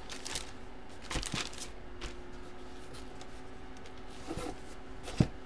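Trading cards being handled on a table: a few faint clicks and light taps, with one sharper click near the end.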